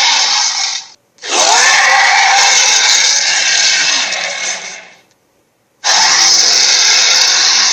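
Titano sound effect played three times in a row: a loud, harsh, grating call. One call cuts off about a second in, the next fades out over several seconds, and a third starts near the end.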